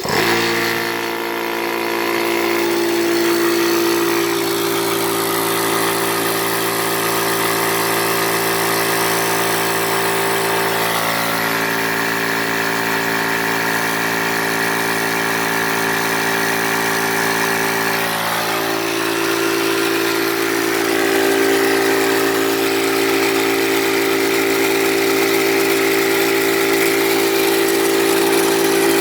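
Yong Heng high-pressure PCP air compressor switching on and running steadily, a loud motor-and-pump hum with several steady tones. The unit has an owner's modification meant to quiet it. Its tone shifts twice, about a third and about two thirds of the way in.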